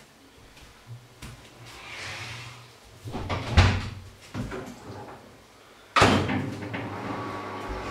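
Kitchen cupboard doors and things inside them being handled: scattered knocks and clatter, then a sudden loud bang about six seconds in, after which a steady hum runs on.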